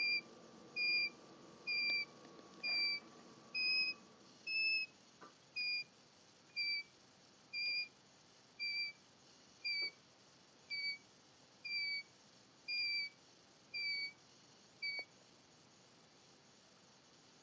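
Baby chick snoring in its sleep: a short, high whistling peep about once a second, each one dropping slightly in pitch, in a steady rhythm.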